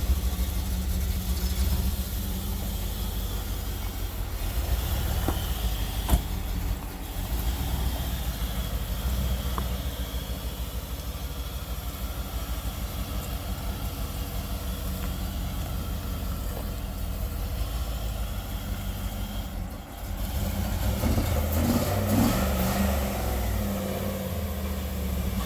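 Chevrolet LT1 350 V8 engine running with a lumpy idle, which the onlookers put down to a big cam. About 20 seconds in it dips briefly, then runs louder and more unevenly.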